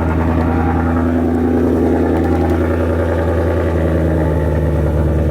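Ford Mustang GT 5.0 V8 with Corsa headers, running on E85, idling steadily at a constant low engine note.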